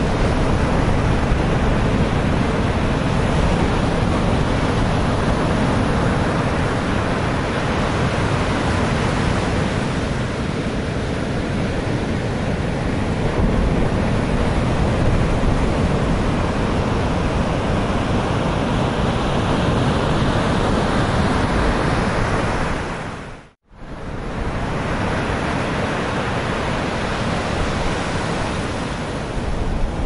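Rough surf breaking and washing against a seawall, a steady dense rumble and hiss, with wind buffeting the microphone. The sound dips out briefly and comes back about two-thirds of the way through.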